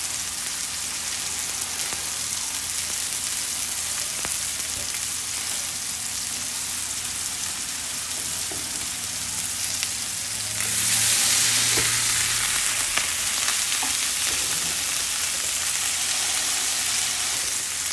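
Smash burger patties of ground beef sizzling on a hot griddle pan as they are pressed flat with a spatula. It is a steady frying hiss that swells louder about ten seconds in, with a few faint clicks.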